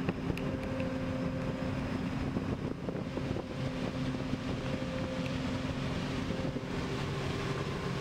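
John Deere combine with a corn head running while harvesting corn: a steady machine drone with a constant low hum.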